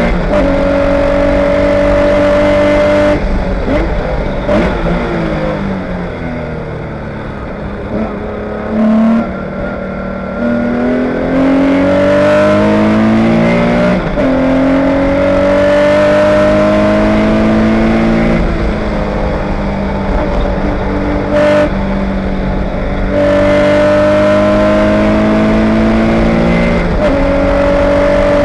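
Air-cooled flat-six engine of a Spec911 Porsche 911 race car, heard from inside the cockpit, rising in pitch under hard acceleration and dropping back at each gear change. A few seconds in, the note falls quieter and wavers for several seconds as the car slows, then it climbs through the gears again.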